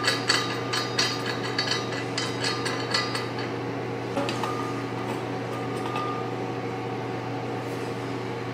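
Brass gas regulator being threaded by hand onto the valve of an argon/CO2 cylinder: a quick run of small metallic clicks and rattles for about the first three seconds, with a few lone clicks after. A steady low hum runs underneath throughout.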